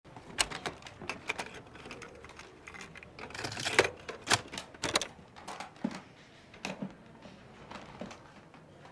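Hands handling plastic CD and cassette cases around a portable stereo: a run of irregular light clicks and knocks with some rummaging, a few sharper clicks about halfway through.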